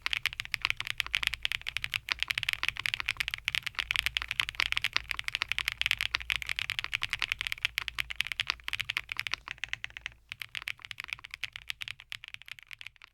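Fast typing on a KBDfans Athena 1800 full-size custom mechanical keyboard, a dense stream of keystroke clacks that thins out and fades away near the end.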